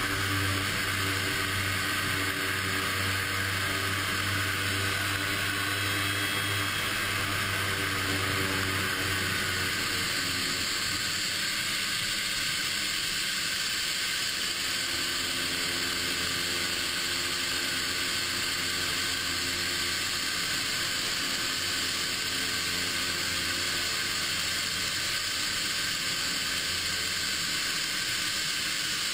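Small propeller aircraft taxiing, heard from beside its main landing gear: a loud, steady rushing hiss over a low engine hum whose pitch shifts about ten seconds in.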